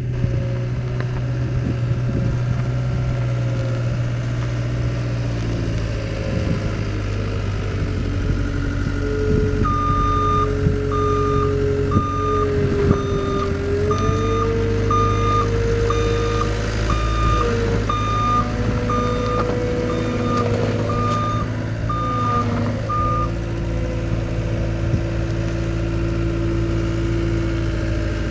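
Cat 262C skid steer's engine running steadily while its backup alarm beeps about every three-quarters of a second, starting about ten seconds in and stopping about thirteen seconds later as the machine reverses.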